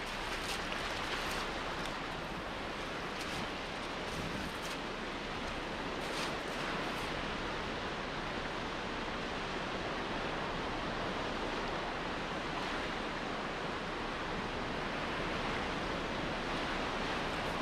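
Rough sea surf washing steadily onto the rocky shore, with a few faint ticks in the first several seconds.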